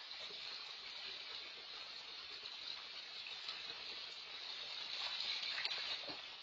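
Water running and sloshing in a raised backyard water-feature basin while a black bear stands in it, growing louder with a sharper splash about five seconds in. Heard through a security camera's microphone.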